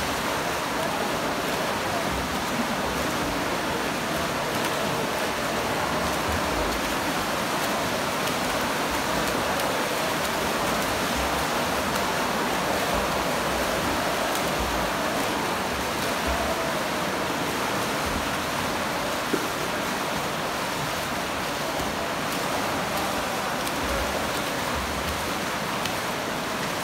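Steady splashing and churning of water from several swimmers doing freestyle laps in neighbouring lanes, heard as an even wash of noise.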